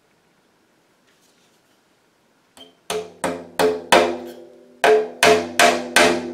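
A small hammer tapping a decorative brass-headed tack into the rim of a goatskin bodhran, about eight light taps at roughly three a second, starting about three seconds in. Each tap sets the drum ringing briefly.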